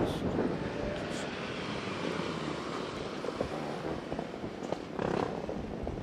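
Steady vehicle rumble, with a few light knocks in the second half.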